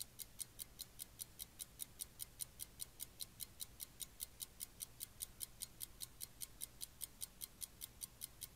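Faint, rapid, evenly spaced ticking, about five high-pitched ticks a second, like a clock ticking fast.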